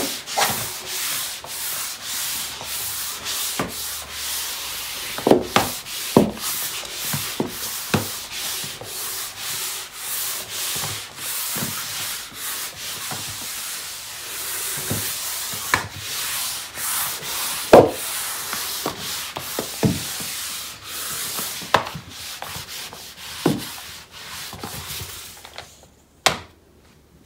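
A disposable pad mop being pushed back and forth over a bathroom floor: a steady rough rubbing in repeated strokes, with a few sharp knocks, stopping near the end.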